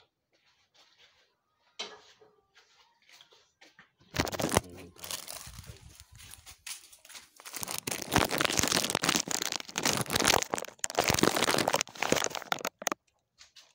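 Loud crinkling, rustling and rubbing right at the microphone, like plastic being handled, as the phone is picked up and moved. It starts about four seconds in and runs densely from about eight seconds until just before the end.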